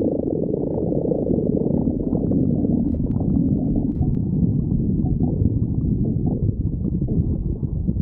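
A person's stomach growling: a low, continuous rumble with no break.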